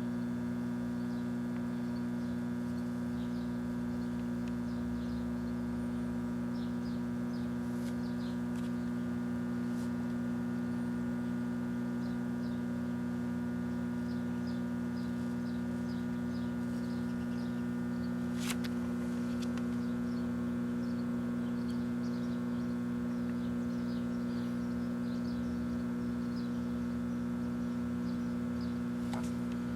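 Microwave oven running with credit cards inside: a steady electrical hum with a stack of even tones, with faint scattered ticks and one sharper click about two-thirds of the way through.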